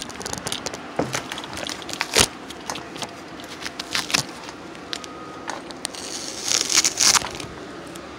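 Handling noise from a phone camera being carried and swung around: irregular clicks, knocks and rustling, with a louder burst of crackling about six and a half to seven seconds in.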